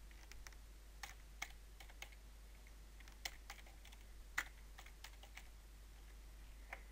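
Faint, irregular keystrokes on a computer keyboard, about a dozen scattered taps, with one louder key press a little past the middle.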